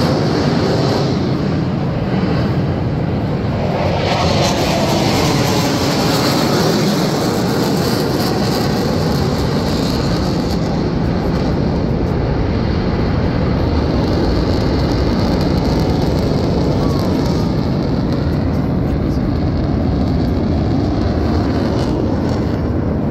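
Jet noise from T-50B supersonic jet aircraft flying overhead: a loud, steady rushing sound that swells about four seconds in.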